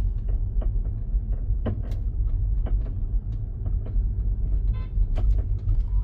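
Irregular light knocks from a Tesla's wheel over the low road rumble inside the cabin, while driving slowly forward on a smooth road. The knocking comes from a brake pad that has come unglued and is knocking up against the brake caliper.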